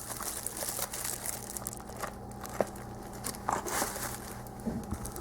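Packaging crinkling and rustling in irregular crackles as items are handled and moved out of the box.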